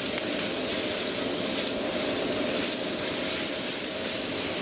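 Vegetables sizzling over high heat in a Lodge 14-inch cast iron wok as they are stir-fried with a silicone spatula, a steady hiss.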